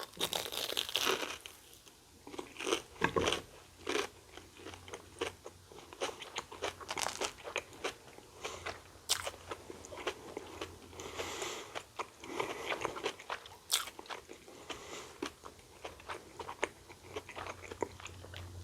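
Biting into and chewing a Korean corn dog: irregular crisp crunches of the batter coating and wet chewing sounds close to the microphone, loudest in the first few seconds.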